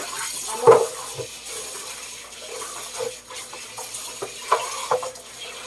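Tap water running into a kitchen sink while dishes and a colander are rinsed, with a few knocks and clatters of the ware against the sink, the loudest about a second in.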